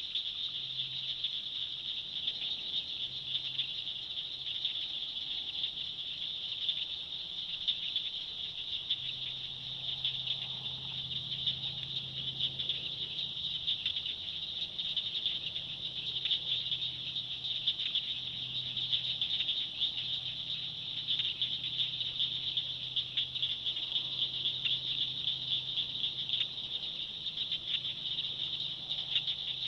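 Dusk chorus of calling insects and frogs in a swamp: a dense, steady, high-pitched trilling that never lets up, with a faint low drone swelling and fading beneath it.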